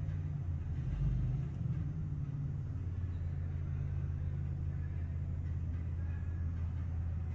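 Steady low hum and rumble, with a brief low swell about a second in and no speech.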